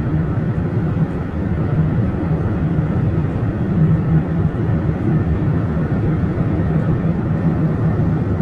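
Steady road and tyre noise of a car cruising at highway speed, heard from inside the cabin as an even low drone.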